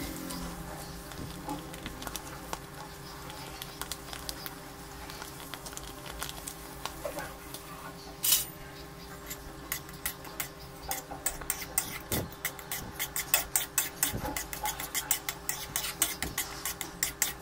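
Metal spoon stirring thick dal makhani in a nonstick pan, tapping and scraping against the pan in quick repeated strokes over the second half, several a second. A steady low hum runs underneath, with one sharp knock about 8 seconds in.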